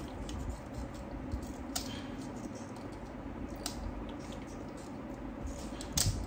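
Light scattered clicks and handling noise as an industrial alarm speaker is readied for a test, over a low steady hum; the speaker itself does not sound.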